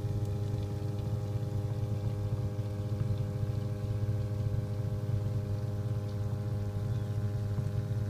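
Sump pump motor running with a steady hum, switched on by its newly replaced float switch and pumping water out of the basin: the sign that the new float switch works.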